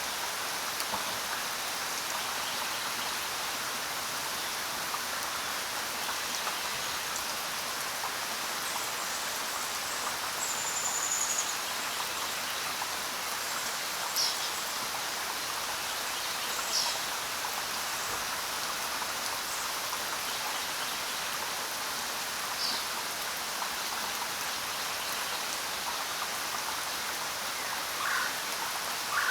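Steady rain falling, an even hiss of many drops, with a few short chirps standing out over it now and then.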